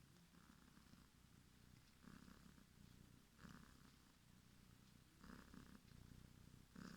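A small cat snoring faintly, with a soft rasping breath about every one and a half seconds, five in all.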